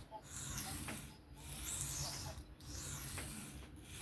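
Knife blade scraping over an Atoma 400 diamond sharpening plate in freehand back-and-forth strokes: a scratchy hiss that breaks briefly at each turnaround, about one stroke every 1.2 seconds, over a low steady hum.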